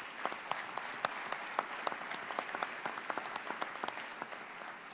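Audience applauding, many hands clapping in a dense patter that begins to ease near the end.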